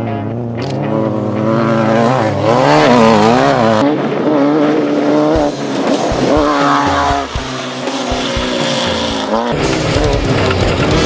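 Off-road race vehicle engines revving hard, the pitch rising and falling as they accelerate and lift. The sound changes abruptly twice, about four and nine and a half seconds in, as one pass gives way to another.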